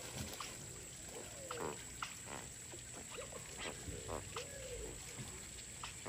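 A flock of flamingos calling: many short grunting and honking calls, each rising and falling in pitch, overlapping at several a second.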